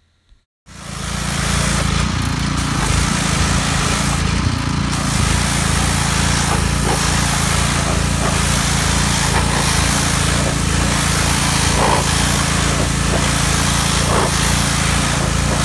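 Pressure washer running steadily: a constant low machine drone under the hiss of the high-pressure water jet spraying onto teak furniture. It comes in about a second in and stays level.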